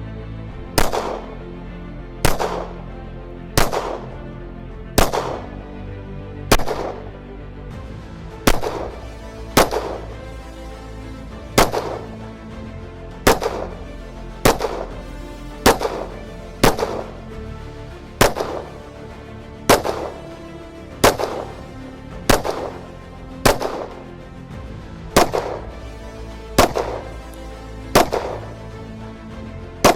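Gunshots, about twenty single reports fired roughly one every second and a half at uneven intervals, over background music.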